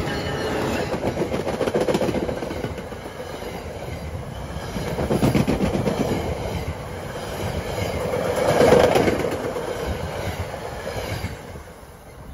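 NJ Transit passenger train hauled by F40PH-2CAT diesel 4119 passing close at speed. Wheels clack over the rail joints, the rumble swells as each car goes by, and it fades near the end as the last car clears.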